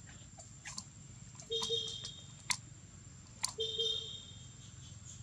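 Scattered sharp clicks and cracks from small food items being handled and opened by hand, with two short calls, each about half a second long, about a second and a half in and again about three and a half seconds in.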